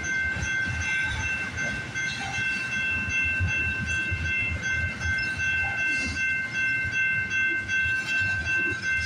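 Freight cars of a passing freight train rolling by close up: a low rumble with irregular wheel clatter, and a steady high-pitched squeal over it.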